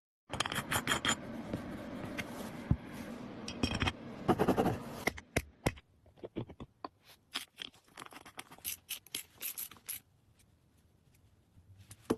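Irregular scraping and scratching with many sharp clicks and taps, loudest about four to five seconds in, fading to faint ticks for the last couple of seconds.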